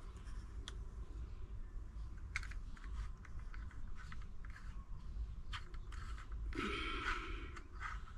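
Faint clicks and rubbing of a plastic handheld shower head being handled, its round screw-on head being gripped and twisted, with one longer plastic scrape late on.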